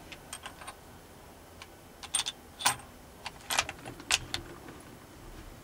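Light, sharp metallic clicks and clinks from handling, about a dozen scattered over a few seconds, the sharpest a little past the middle. No shot is fired.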